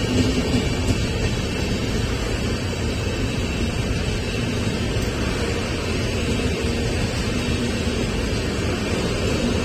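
Humsafar Express passenger coaches running past close by: a steady rumble of wheels on the rails with a hiss over it.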